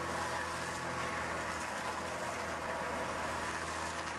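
Tractor engine running at a steady speed, a constant hum under an even noisy haze.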